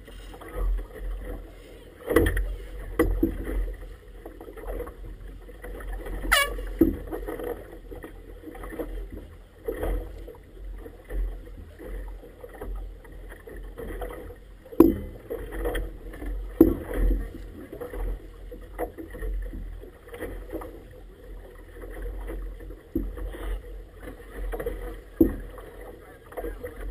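Choppy water slapping irregularly against the hull of an inflatable boat lying still on the water, in uneven splashy knocks a second or more apart over a low rumble.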